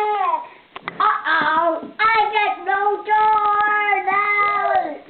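A young child's wordless sing-song vocalizing: short rising and falling phrases, then one long held note that fades out near the end.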